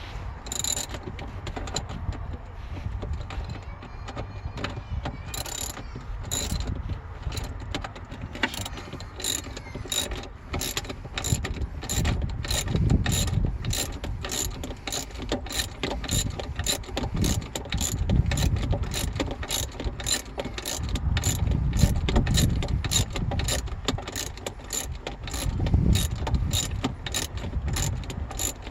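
Ratchet spanner clicking as a battery hold-down bolt is turned, sparse at first, then a steady run of about two clicks a second.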